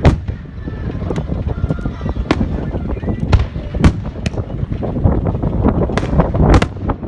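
Fireworks display going off close by: a string of sharp bangs, the loudest right at the start, about four seconds in and near the end, over a steady low rumble.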